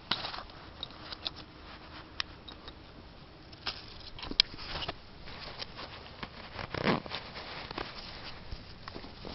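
Camping gear being handled: faint rustling of sleeping bag and pad fabric with scattered sharp clicks, and one louder thump about seven seconds in.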